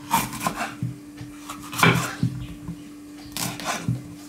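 Kitchen knife cutting a bell pepper into cubes on a cutting board: about half a dozen irregular knocks of the blade on the board, with some slicing in between.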